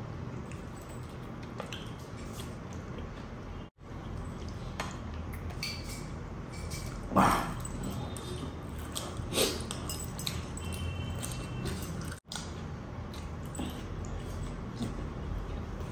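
A man eating with his fingers: chewing and mouth noises, with two short voice sounds about seven and nine seconds in, over a steady low hum.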